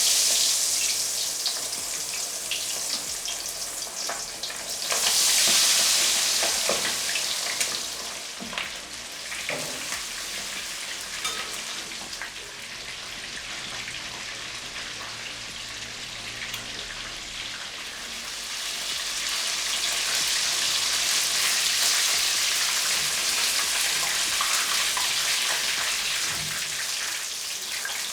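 Battered chicken drumsticks deep-frying in hot cooking oil: a loud, steady sizzle with crackle. It swells about five seconds in, eases off, and grows louder again in the second half.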